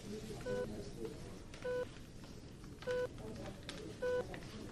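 Hospital patient monitor beeping: a short electronic tone repeating evenly about every 1.2 seconds, four beeps in all, over a low murmur of ward voices.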